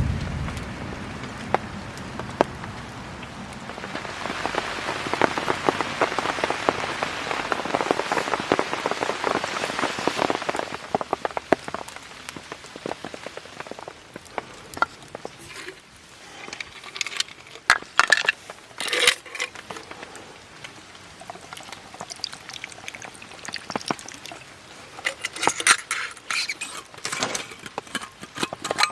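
Rain pattering on a polycotton (TC) tarp. About four seconds in it grows heavier for several seconds, then eases to scattered drops, with a few clusters of sharp clicks in the second half.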